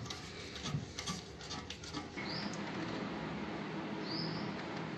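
Screwdriver turning a toilet's back-to-wall fixing screw down through its metal bracket on the ceramic: light clicks and scrapes for about two seconds. Then a steady hiss with a few short high chirps.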